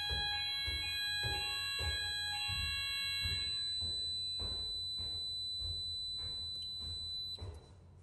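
Fire alarm sounding after a manual call point activation on an Advanced MxPro 5 addressable panel: a steady high electronic tone over a regular pulsing beat about one and a half times a second. It cuts off near the end as the panel is reset.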